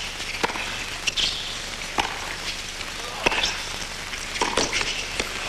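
Tennis balls struck by rackets in a baseline rally on a hard court: a few sharp pops about a second and a half apart over a low crowd hush.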